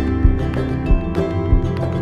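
Background music with a steady beat, about two beats a second, over held tones.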